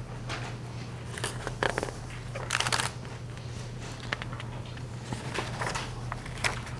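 Scattered soft rustles and small clicks in a quiet room, with a brief hiss about two and a half seconds in, over a steady low electrical hum.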